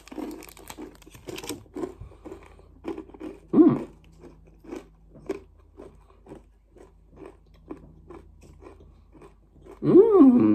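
A person chewing a bite of honey-and-peanut nougat, short crunchy chews at about two to three a second. The plastic wrapper crinkles at the start.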